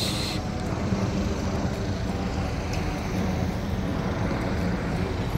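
Jet airliner flying overhead: a steady engine rumble that neither rises nor falls.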